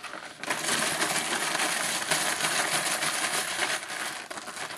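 A dense rattle of many small hard pieces being shaken together for about four seconds, easing off near the end, as the pieces for a letter draw are mixed.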